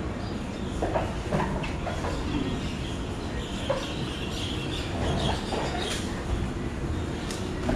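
Scuffing and scattered dull thumps of grappling bodies on training mats, over a steady low hum.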